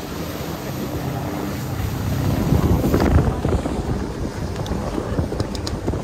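Wind buffeting the microphone on a ferry's open deck over the rush of water, swelling louder about two and a half seconds in.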